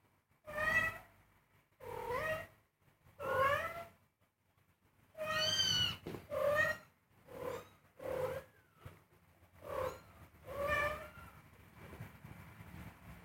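Very young kittens mewing over and over: about ten short, high, pitch-bending cries with brief pauses between them, one drawn out a little longer midway.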